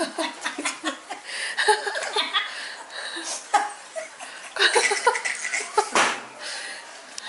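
An elderly woman laughing hard in repeated bursts.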